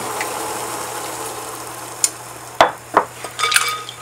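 Ice cubes knocking and clinking against a glass bowl of ice water as a hand moves blanched wakame around in it: two dull knocks about two and a half seconds in, then a short run of sharp, ringing clinks. A steady hiss and low hum lie underneath.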